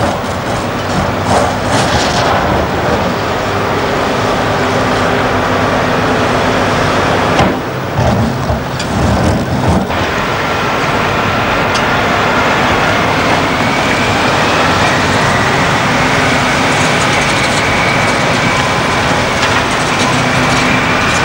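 Heavy diesel earthmoving machinery running: a Liebherr R992 hydraulic excavator digging broken rock, with sharp clatters in the first two seconds. Then Caterpillar 769C rigid dump trucks, each with a V8 diesel, approach, and their engine note rises slowly over the last several seconds.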